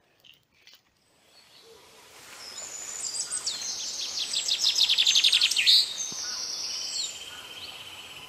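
Forest bird chorus fading in after a near-silent first second: birds chirping with fast, high trills, loudest about five seconds in, then a steadier high trill near the end.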